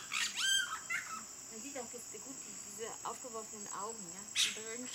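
A steady, high insect chorus, with bird calls over it. Sharp calls come near the start and again near the end, and lower wavering calls come in between.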